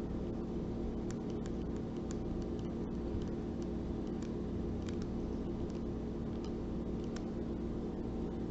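Steady low hum and hiss of background noise, with a few faint scattered ticks.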